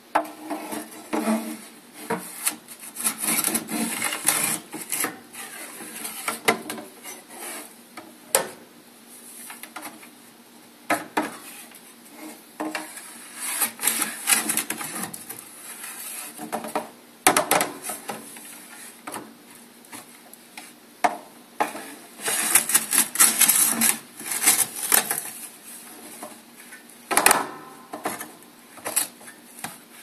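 Metal ash scoop box scraping ash across the firebrick floor of a wood stove's firebox in repeated rasping strokes, with a few sharp knocks of the scoop against the stove.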